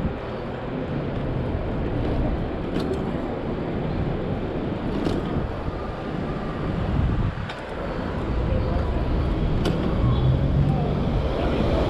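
Wind rushing over the microphone on a moving bike, with street traffic noise underneath and a few faint ticks. It gets louder about eight seconds in as the ride speeds up.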